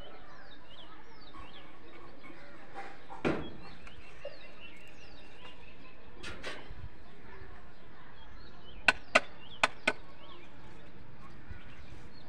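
Four sharp knocks in quick succession near the end, like wood being struck, after a duller single thump earlier on.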